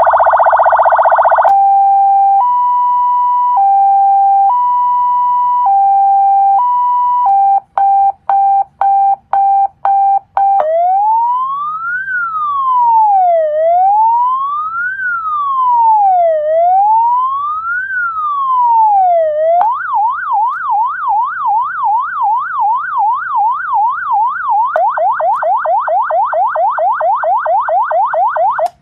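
A CJB 12 V 200 W electronic siren cycling through its tones. It opens with a brief buzzy horn blast, then a two-tone hi-lo alternating about once a second and a few seconds of rapid beeps. A slow rising and falling wail follows, about three seconds per cycle, then a fast yelp at about three sweeps a second that speeds up further near the end.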